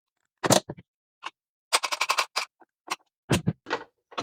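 Hand tools clicking and scraping on electrical wire while a 220 V breaker is being wired. There are scattered sharp clicks, with a quick run of about eight in under a second near the middle.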